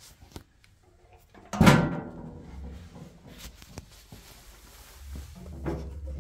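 A loud metallic thunk about one and a half seconds in, with a short ringing fade, from the sheet-steel cabinet of a Hammer N3800 bandsaw being handled. Fainter knocks and rattles follow.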